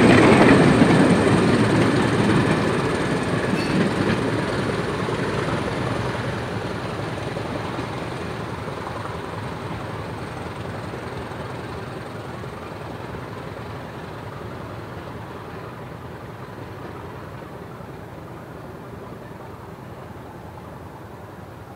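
A train running away into the distance, its wheel and running noise fading steadily until it is faint.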